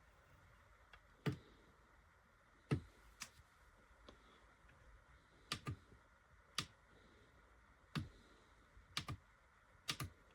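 Buttons clicking, pressed one at a time at uneven intervals, about ten presses, some in quick pairs.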